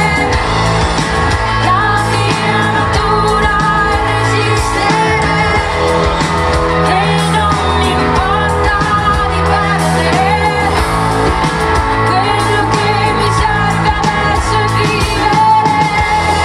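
Live pop-rock band playing through a PA: a woman singing lead over electric bass, electric guitar and a drum kit.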